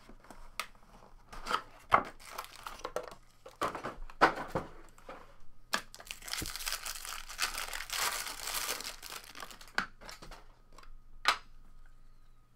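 Trading-card pack being torn open and its wrapper crinkled by hand, with a long stretch of tearing and crinkling in the middle. Scattered rustles and a few sharp taps come from handling the cardboard box and the card stack.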